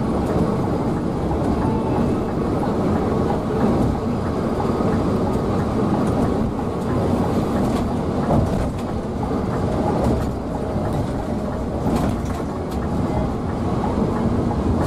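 Cabin noise inside a Scania K360iB coach cruising at highway speed: a steady low rumble of tyres and drivetrain, with a few light rattling clicks.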